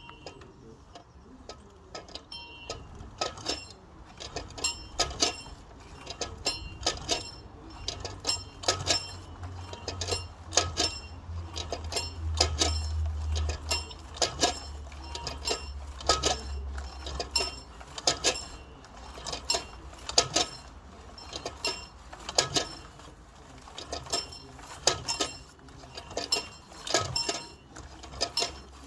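A high-pitched bell rung over and over, struck about one to two times a second in an uneven rhythm, each stroke a bright metallic ring. A low rumble runs underneath for several seconds in the middle.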